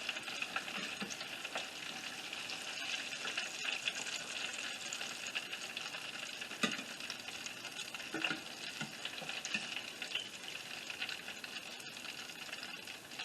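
Breaded green tomatoes deep-frying in hot oil, a steady sizzle, with a few light knocks of a utensil against the pan as pieces are lifted out.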